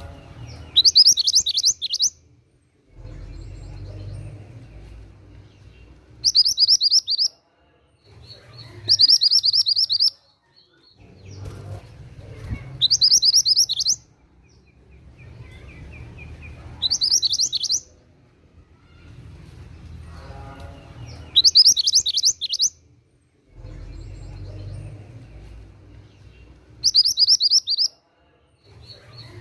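Mantenan gunung songbird singing: short, loud, high trilled phrases of rapid falling notes, each about a second long, repeated about every three to four seconds. Faint low background noise fills the gaps between phrases.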